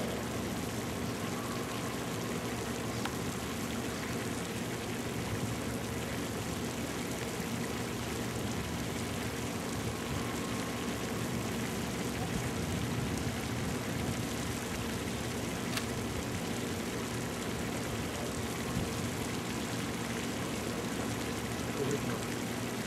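Distant hydraulic excavator's diesel engine running steadily as it works, a low even drone under a constant hiss.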